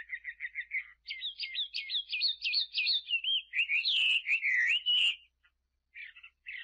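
A small songbird singing: fast runs of high repeated chirps, then warbling notes that swoop up and down, breaking off about five seconds in before a few short chirps resume near the end.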